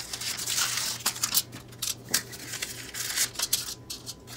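Paper cupcake liners crinkling and rustling in irregular bursts as they are peeled apart from a stack and pressed into the cups of a muffin tin.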